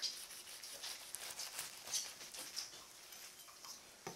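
Light, irregular crackling and rustling of a crisp toasted-bread sandwich being handled and pressed on a cutting board, with one sharper tap near the end.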